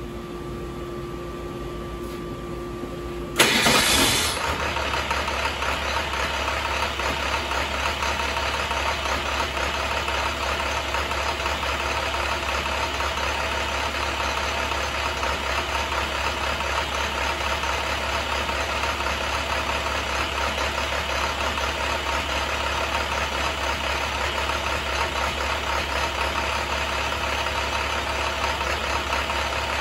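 2008 International MaxxForce DT inline-six diesel engine on a run stand. A steady whine for about three seconds, then the engine starts with a brief loud burst and settles into a steady idle.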